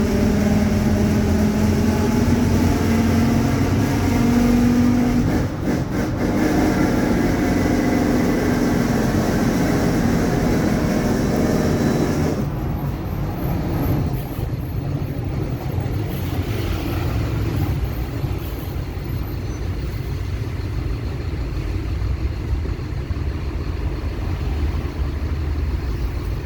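Mercedes-Benz OF-1721 BlueTec 5 bus under way: diesel and road rumble with a steady droning whine from the differential, a sign of a worn, noisy differential. About twelve seconds in the sound changes abruptly: the high hiss drops away and the whine weakens, leaving a rougher low rumble.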